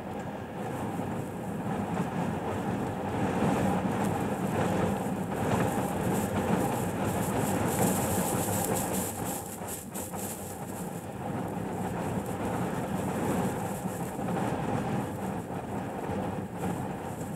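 Strong wind buffeting a truck, heard from inside the cab: a steady rumbling rush that swells and eases in gusts, loudest in the middle and dipping about ten seconds in.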